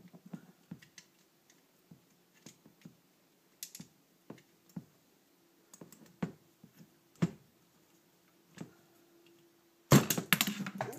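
Small scattered clicks and knocks of a screwdriver and metal carburetor parts being handled, as a stuck boot clamp screw on a 1979 Honda CB650 carburetor is worked loose. A louder, quick run of clattering comes near the end.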